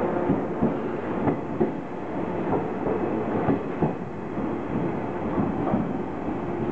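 JR Kyushu 415 series 500-subseries electric multiple unit pulling out of the station, its wheels clacking over rail joints as the cars run close past. The clacks come closer together in the first few seconds and grow slightly fainter and sparser as the last car draws away.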